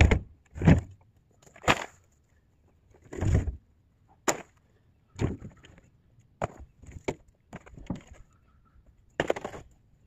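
Scrap wood and junk being pulled from a pickup truck bed and tossed onto a debris pile: a run of irregular knocks, clatters and crashes about once a second, the loudest at the start.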